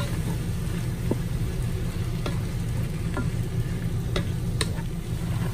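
A wooden spurtle stirring diced chicken and ham in the hot Ninja Foodi pot on sear/sauté, with a steady sizzle, a scattering of sharp clicks as the spurtle knocks the metal pot, and a steady low hum underneath.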